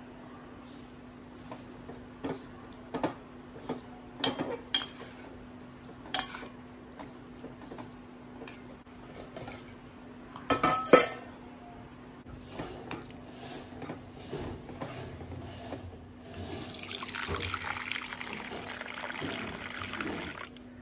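A utensil clinks, knocks and scrapes against a steel bowl as raw prawns are mixed with spices, with the loudest clinks about ten seconds in. In the last few seconds water runs and pours into a steel bowl, and a faint steady hum lies underneath.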